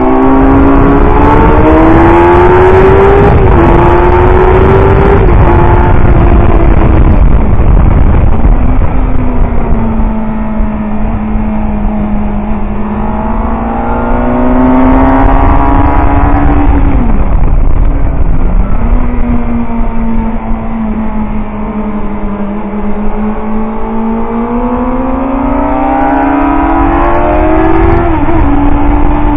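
Suzuki GSX-R750 K4's inline-four engine heard from the rider's seat at race pace: pitch climbing through the gears with quick upshifts in the first few seconds, falling off under braking, then rising again. There is a sharp dip and recovery about two-thirds of the way through and another shift near the end.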